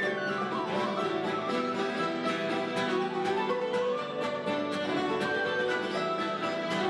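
Live Celtic band playing a traditional tune, fiddle and flute carrying the melody over guitar accompaniment.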